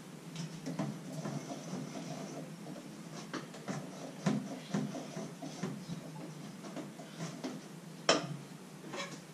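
Irregular clinks and scrapes of a utensil worked in a stainless-steel mixing bowl, several a second, with one sharper knock near the end, over a steady low hum.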